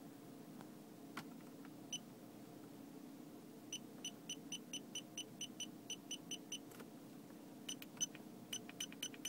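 Electronic beeper of D1 Spec gauges sounding short high beeps: one single beep, then a quick run of about four or five beeps a second, and after a sharp click near the end another fast run of beeps, as the gauge control buttons are pressed.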